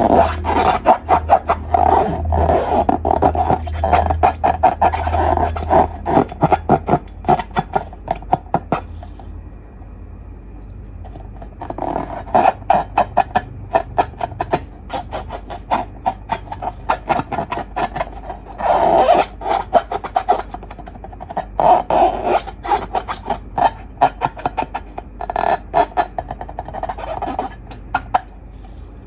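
Slime being squeezed and worked by hand, giving dense runs of rapid crackling and popping clicks in bursts, with a quieter pause about nine seconds in before it resumes.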